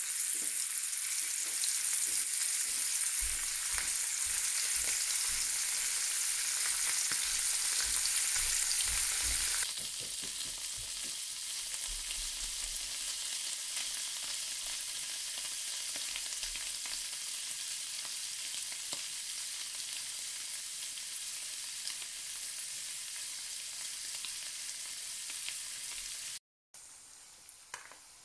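Marinated anchovies deep-frying in hot oil in a pan, a dense, steady sizzle. It drops a little about ten seconds in, breaks off briefly near the end, and comes back as a quieter sizzle.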